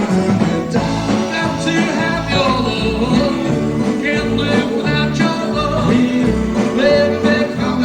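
Live doo-wop cover band playing an oldies song, with singing over guitar and bass.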